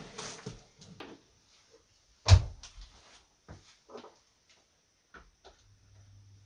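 Wooden trays and the wooden frame of a homemade drying cabinet being handled: a series of knocks and clicks, with one loud knock a couple of seconds in. A low steady hum starts near the end.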